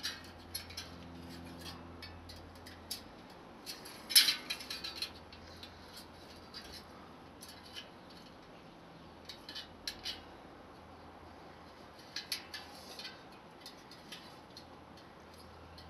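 Bicycle spokes clicking and rattling against each other and the hub as a new spoke is threaded through the rear hub and laced into the wheel: scattered metallic ticks, with a louder clatter about four seconds in and more near the end.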